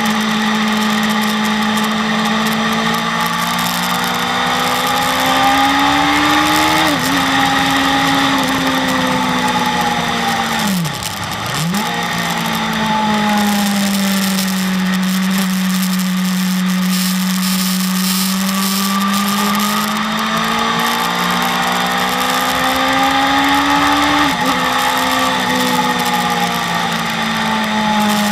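BMW S1000RR's inline-four engine pulling hard at high revs, its pitch climbing and then stepping down at upshifts about seven seconds in and again near the end. About eleven seconds in the revs drop sharply and come straight back up as the throttle closes and reopens. A steady rush of wind noise runs underneath.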